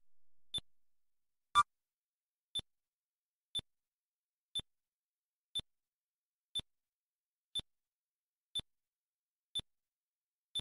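Short electronic ticks, one each second, the second tick a little louder than the rest: the time-lapse map's timer marking each month as it passes. Only the plain month ticks sound, with no explosion blips, as the test count holds still.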